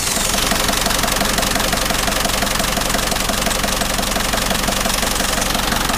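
Diesel engine of a non-turbo Ford Transit van idling under the open bonnet with a steady, evenly pulsing diesel clatter.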